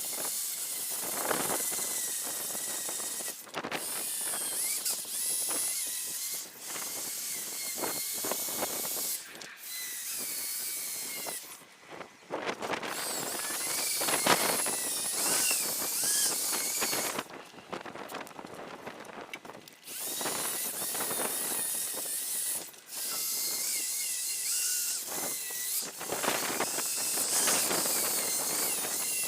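Drill spinning a P1500 sanding disc on a backing plate against a car headlight lens, running in stretches of a few seconds with short stops between, its motor whine wavering in pitch over a hissing grind.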